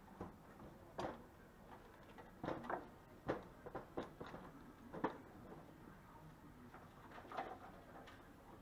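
Scattered knocks and clatter of a van's front radiator core support being worked loose by hand, a dozen or so separate knocks at uneven intervals, the sharpest about a second, three seconds and five seconds in.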